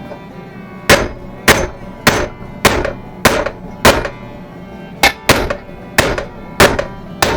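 Hammer strikes on steel, driving a new wheel-bearing race into a front hub: about eleven sharp blows, roughly two a second, with a short pause about halfway through.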